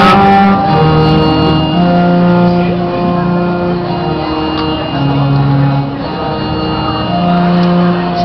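Background music of slow, sustained chords, each held for a second or more before moving to new notes.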